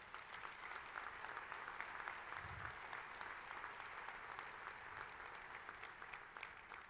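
Audience applauding: a steady patter of many clapping hands that dies away near the end.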